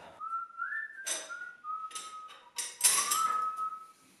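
A man whistling a short tune of a few held and sliding notes, mixed with short bursts of hissing noise.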